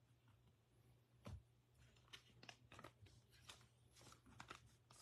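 Near silence, with a few faint light clicks and taps of trading cards being handled. One slightly louder tap comes about a second in.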